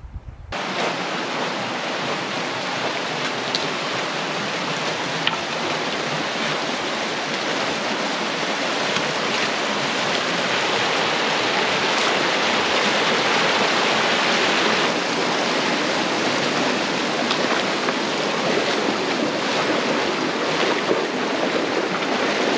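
River water rushing steadily, starting abruptly about half a second in.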